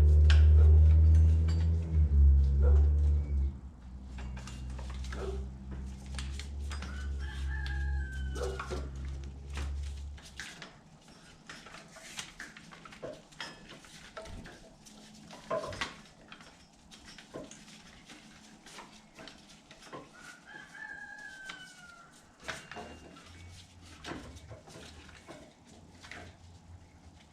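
A rooster crows twice, about eight and twenty seconds in, over scattered clicks and knocks of hands and tools working in an engine bay while a serpentine belt is fitted. A loud low steady rumble at the start drops away about three seconds in and stops about ten seconds in.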